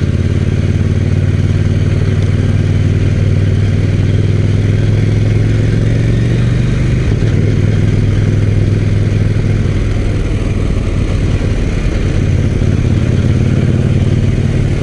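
KTM 790 Duke's parallel-twin engine running at a steady cruise, heard from the rider's position over a constant rush of wind. The engine note eases slightly about seven seconds in and again near ten seconds, then picks up again.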